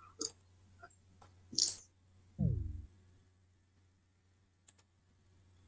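Scattered faint clicks and taps of a computer mouse and keyboard, with a short low man's hum falling in pitch about two and a half seconds in.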